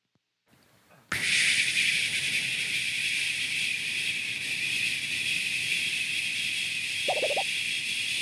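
A person's vocal impression of a jet airliner taking off: after about a second of silence, a steady, high hissing jet-engine whoosh starts suddenly and holds evenly, with a short lower rumble about seven seconds in.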